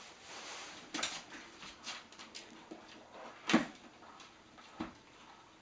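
A small dog sniffing with a few short, sharp sneezes as it noses at live crabs; the loudest sneeze comes about three and a half seconds in.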